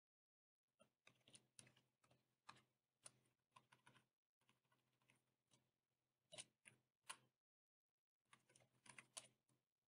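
Faint computer keyboard typing: irregular runs of keystroke clicks, with a pause of about a second near the start and another near the end.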